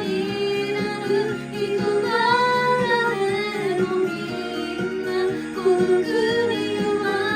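A young woman singing a J-pop song over a karaoke backing track.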